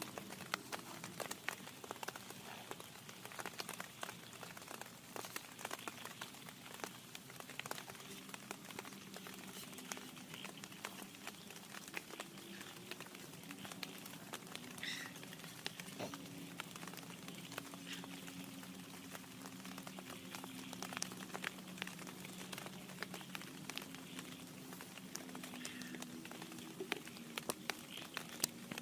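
Raindrops striking a tent in dense, irregular ticks, over a faint low hum.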